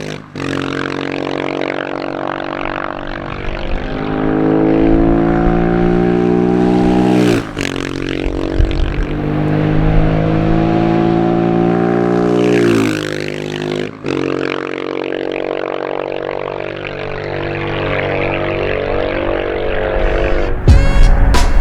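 Husqvarna 701 supermoto's single-cylinder engine with a Leo Vince exhaust, accelerating hard under load. The pitch climbs through a gear for several seconds and drops at an upshift, twice, then holds lower and steadier. Music with drums cuts in near the end.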